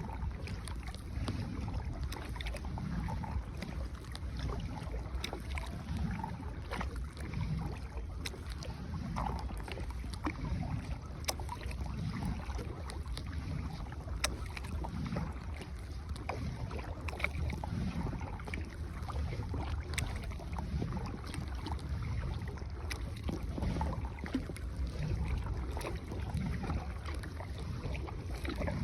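A rowboat being paddled, with a soft paddle stroke in the water about every second and a half and occasional light knocks. Wind noise on the microphone underneath.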